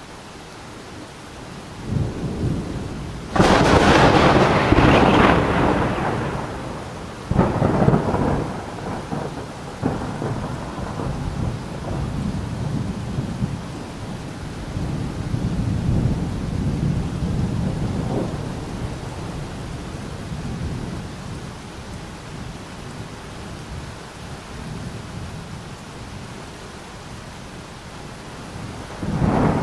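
Thunderstorm: rain hissing steadily under low rolling rumbles, with a loud thunderclap about three seconds in that rolls off over a few seconds, another crack a few seconds later, and a further clap near the end.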